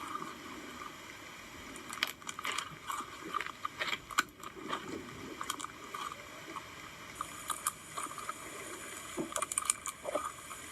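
Slime being squished and stretched by hand: irregular wet clicks, pops and squelches.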